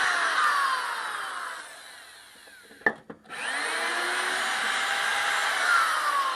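Milwaukee power drill run twice, each run a few seconds long with its motor pitch slowly falling. A sharp click and a brief pause come between the two runs.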